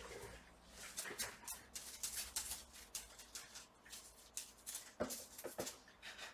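Faint, irregular small clicks, taps and rustles of hands and tools working on an opened laptop, with two sharper taps about five seconds in.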